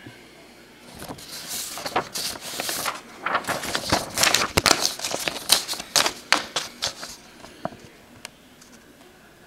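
Printed paper sheets rustling and crackling as they are handled and turned close to the microphone, a dense run of crisp crinkles that tails off into a few scattered ticks near the end.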